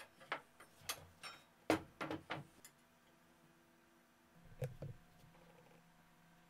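Handling noises: a cordless circular saw's metal base and an aluminium guide track knocked and shifted about on a plywood bench. A quick run of light clicks and knocks comes in the first three seconds, then a duller thump about four and a half seconds in as the saw is tipped up.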